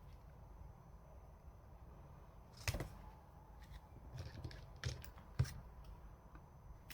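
Quiet handling sounds of crocheting: a few light clicks and taps from the hook and work piece, over low room noise.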